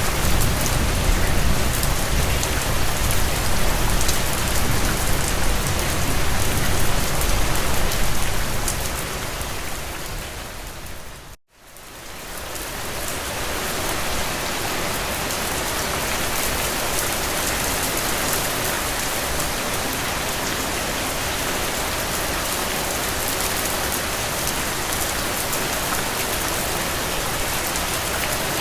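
Steady rain falling, with a low rumble underneath during the first several seconds that dies away. About eleven seconds in the rain fades out to near silence for a moment, then fades back in and carries on evenly.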